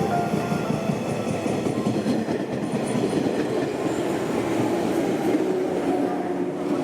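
JR 115-series electric train running into the station with a steady rumble from its wheels and running gear. The last note of a station chime from the nearby Shinkansen platform ends just as it begins.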